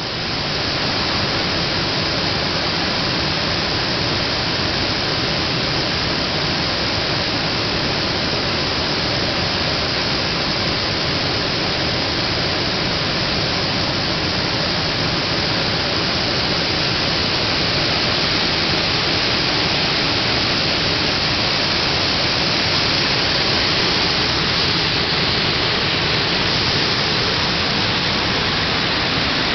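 Steady, even rushing noise that holds at one level without change.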